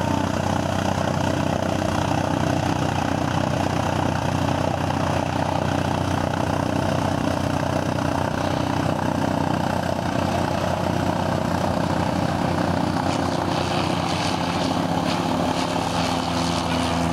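Single-engine light propeller plane running its piston engine at takeoff power as it rolls down the runway: a steady propeller hum whose tones shift and strengthen over the last few seconds as the plane comes close.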